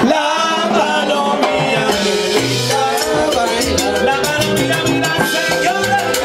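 Salsa music from a band, with percussion, bass and melody lines over a steady beat. The bass drops out at the start and comes back about two and a half seconds in.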